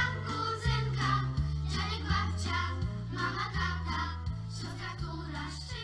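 A group of schoolchildren singing a song together over an instrumental accompaniment with a steady, stepping bass line; the sound grows quieter near the end.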